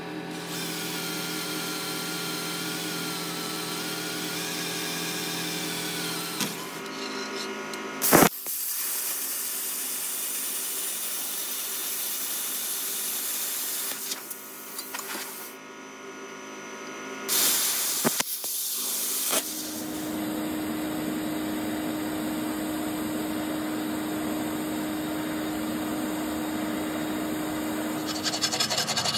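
Cordless drill motor running steadily as it bores through a steel bracket held in a bench vice. A handheld grinder then works the steel in louder noisy passes, and near the end comes a steady electric welding hum with hiss.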